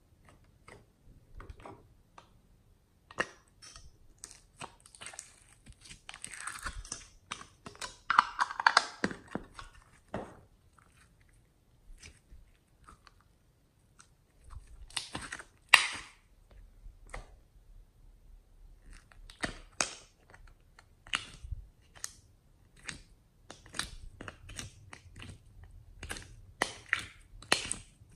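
Hands squishing and stretching slime, giving a run of small wet clicks and pops. There is a denser stretch of crackling squelches about six to ten seconds in and one loud pop around the middle.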